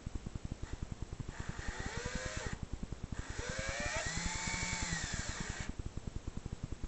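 Cordless drill driving wood screws into a wooden door frame in two runs, the second longer, the motor's pitch rising and then dropping off in each.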